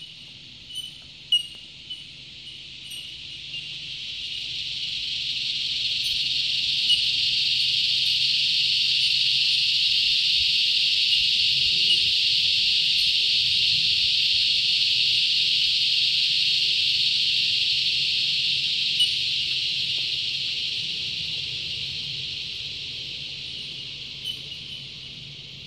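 Cicada chorus swelling up over the first few seconds into a loud, steady high buzz, then slowly fading away near the end. A few short, bright chime-like notes sound in the first couple of seconds.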